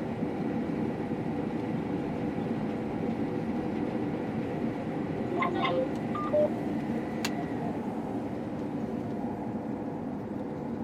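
Combine harvester running steadily while cutting wheat, heard from inside the cab. A few short beeps come about halfway through, and a single click follows a little later.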